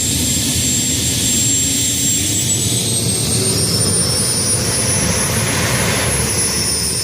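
Helicopter jet turbine engine of a jet-powered Suzuki quad running loud: a steady rush with a high turbine whine that rises in pitch about two and a half seconds in and eases back down near the end.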